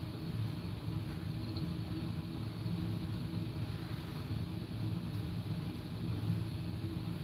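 Steady low mechanical hum, even throughout with no sudden sounds.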